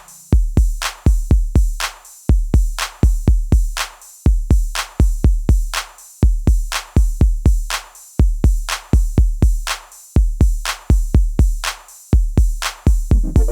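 Background electronic music: a drum-machine beat of deep kick drums with sharp clicky hits, repeating in even bars about every two seconds.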